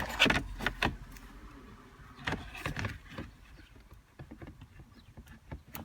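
Plastic clicks and rattles of a wiring-harness connector being worked off the back of a 2002 Honda Civic's cigarette lighter panel. There are several sharp clicks in the first second, another cluster about two seconds in, then it goes mostly quiet.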